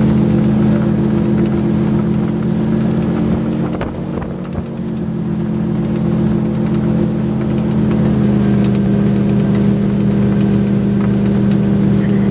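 Towing motorboat's engine running steadily under load, with a slight change in its note about two-thirds of the way through.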